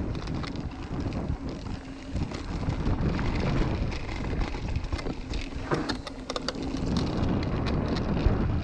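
Mountain bike rolling fast down a dirt trail: wind rushing over the microphone and tyre rumble, with frequent sharp clicks and rattles from the bike over the rough ground.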